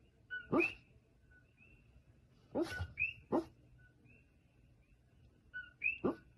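A sleeping dog giving short yips and soft barks in its sleep, once near the start, three in a quick run around the middle and two or three more near the end.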